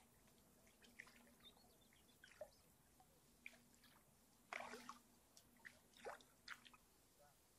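Faint, scattered drips and small splashes of water, the loudest about four and a half and six seconds in, over a faint steady hum.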